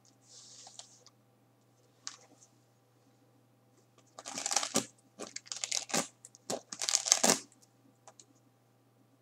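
Rustling, crinkling handling noise close to the microphone, in several bursts between about four and seven and a half seconds in, with a soft hiss near the start.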